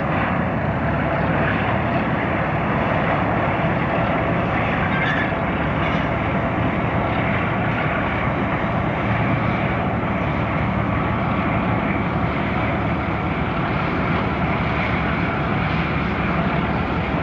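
Diesel locomotive engine running with a steady drone.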